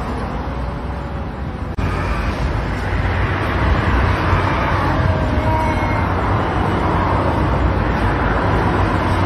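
Steady background noise with a low hum that steps up in loudness about two seconds in. A few faint, drawn-out, wavering cries come from two cats squaring off.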